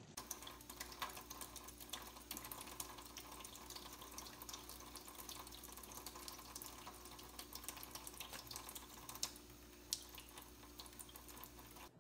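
Thin stream of water from a kitchen faucet running into the sink, a steady trickle with many small splashy ticks and one sharper splash about ten seconds in, as a cat paws at the stream.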